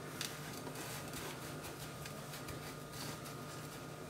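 Faint gritty rustling and crunching of hands pressing a coarse grey-salt and brown-sugar cure onto a salmon fillet in a glass dish, over a low steady hum.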